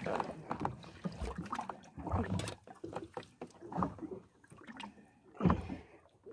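A large zander in a landing net being hauled aboard a fishing boat, with irregular knocks and bumps of the net and its frame against the boat. The loudest is one heavy thump about five and a half seconds in.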